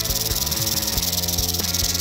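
Eastern diamondback rattlesnake buzzing its rattle steadily, the defensive warning of a coiled snake, over background music.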